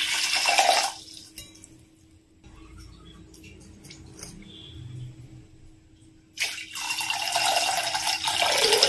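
Water poured from a cup into a stainless steel saucepan, splashing on the pan. The first cupful stops about a second in, and a second cupful starts pouring about six seconds later.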